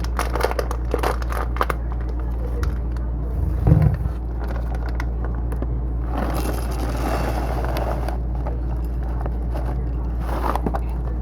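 Kitchen handling noises over a steady low hum: clicks and taps, a thump about four seconds in, and a longer rustling hiss from about six to eight seconds in.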